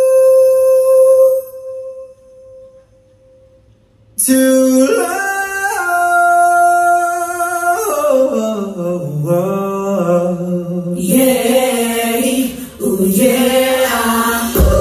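Live stage-show music. A long held note ends about a second in, followed by a short lull. About four seconds in, singing with backing music starts up, its notes climbing step by step.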